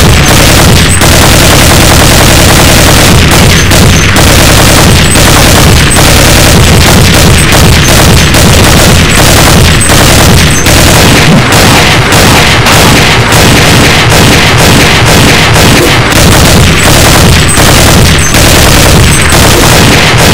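Loud, unbroken barrage of gunfire and explosion sound effects mixed with music, a dense wall of rapid shots and booms.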